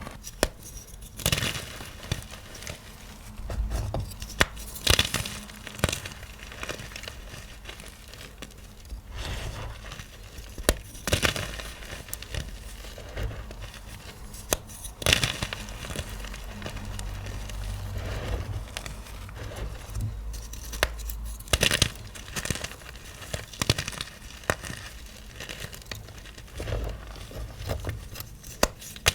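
Small blocks of dyed gym chalk (magnesium carbonate) being crushed, crunching and crumbling, with irregular sharp crunches every few seconds over a steady grainy crumble.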